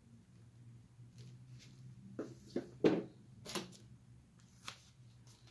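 A few short crisp rustles and taps of rolled paper weaving tubes being handled and bent, clustered between about two and five seconds in, over a faint low steady hum.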